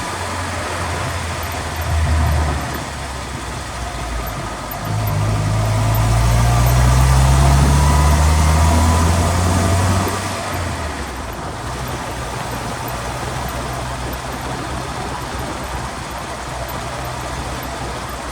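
Underbody drivetrain and road noise of a vehicle on the move, heard from the transmission skid plate: a steady low drone with tyre hiss. About five seconds in, the low hum grows louder and rises in pitch as the vehicle speeds up, then falls back near the ten-second mark.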